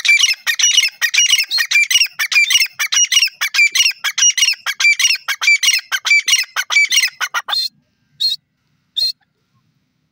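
Grey francolin calling: a loud, rapid run of shrill, repeated notes that goes on for about seven and a half seconds, then two single short notes.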